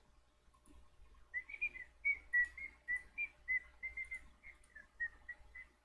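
Whistling: a quick run of short, high notes at about the same pitch, starting about a second and a half in.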